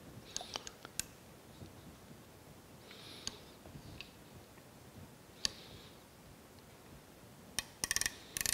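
Scattered light clicks of a micrometer and gauge pins being handled and set against a machine-slide dovetail, with a quick run of clicks near the end.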